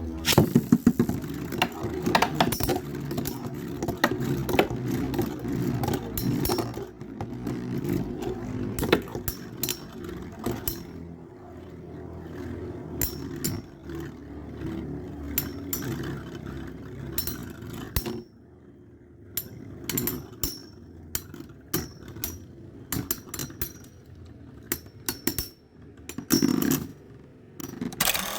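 Two Beyblade spinning tops whirring against a plastic stadium floor, clashing with frequent sharp clicks and clacks. About two-thirds of the way through the steady whir drops away, and the collisions go on as scattered clicks.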